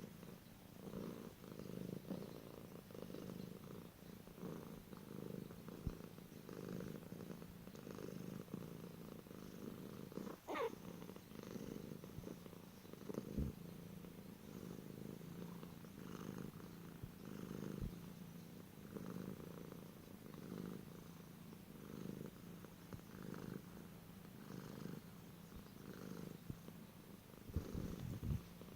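Domestic cat purring, the low rumble swelling and fading about once a second with each breath. About ten seconds in there is a brief, sliding high squeak.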